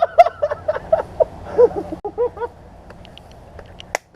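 A man laughing in a quick string of short bursts for about two and a half seconds, trailing off into fainter chuckles, with a sharp click near the end.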